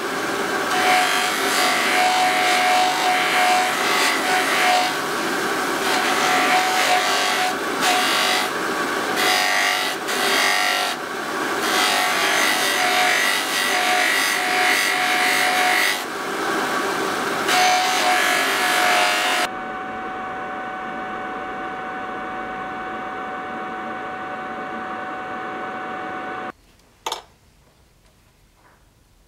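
Metal scabbard chape being polished against a spinning cloth buffing wheel on a bench motor: a loud rubbing hiss over the motor's steady whine, with short breaks as the piece is shifted. About two-thirds in, the rubbing stops and the motor runs on alone with a steady tone. It stops abruptly a few seconds before the end, followed by a single click.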